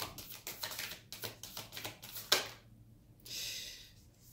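Tarot cards being handled: a quick run of light card clicks and taps, one sharper snap a little over two seconds in, then a short sliding swish of cards.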